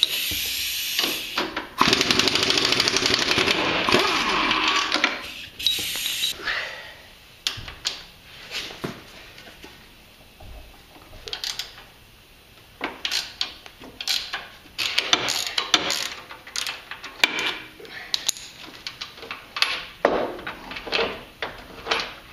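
Steering-gearbox mounting bolts on a Jeep Cherokee XJ frame being undone. A loud buzzing tool noise comes in stretches for about the first six seconds. Then a hand ratcheting wrench clicks in short runs, with scattered metal clinks.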